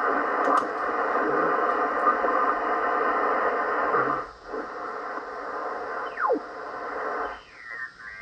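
Receiver audio from a Yaesu FT-710 tuned in lower sideband on the 75-metre band. For about four seconds a dense hiss of static and overlapping signals fills the speaker. It then drops away as the dial is turned, and one whistle slides down in pitch, followed near the end by more gliding whistles of signals being tuned across.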